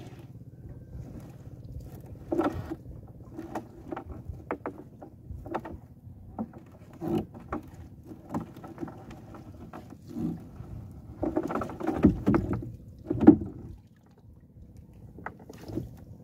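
Wet fishing net being hauled in by hand over the bow of a small outrigger boat: irregular splashes, drips and knocks of the net against the hull, with a louder cluster of them about three-quarters of the way through.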